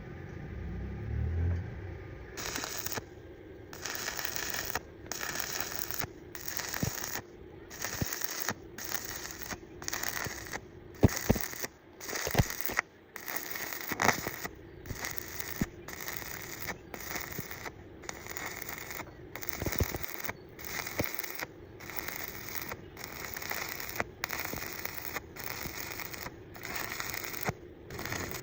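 Electric arc welding crackling and sputtering in repeated short runs, each broken by a brief gap about once a second, with a few sharper pops along the way.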